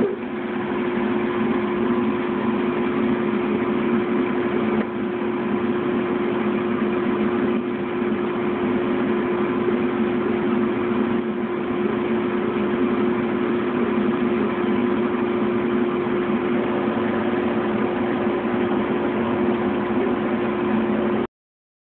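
Laser engraving machine running steadily while engraving: a constant mechanical hum with one steady tone over an even hiss. It cuts off suddenly near the end.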